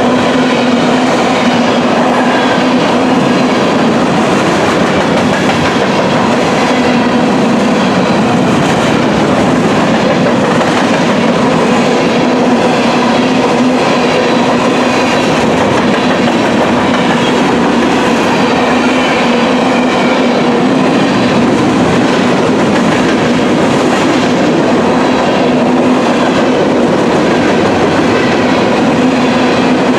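Freight train of covered grain hopper cars rolling past at close range: a loud, steady clatter of steel wheels over the rail joints, with a steady droning tone underneath.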